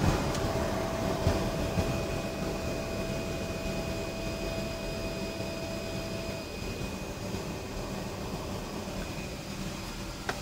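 Steady aircraft noise heard inside the cockpit: a low rumble with thin steady tones on top, one of which stops about six seconds in, and a click near the end.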